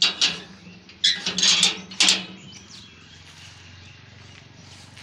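Rusty iron barrel bolt on a wrought-iron gate being slid open: a quick series of metallic scrapes and clanks over the first two seconds.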